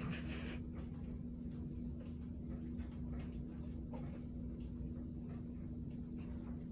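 Domestic cat purring steadily while its face is stroked, with a short rustle first.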